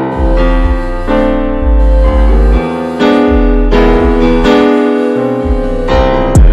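Background music on a piano-like keyboard, with chords over a low bass line, the notes changing about every half second.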